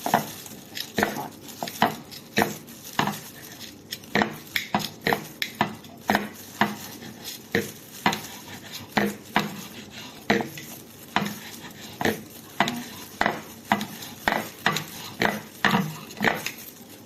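Kitchen knife chopping cooked lamb chop into small pieces, the blade knocking on the surface beneath in a quick, irregular run of sharp knocks, about two or three a second.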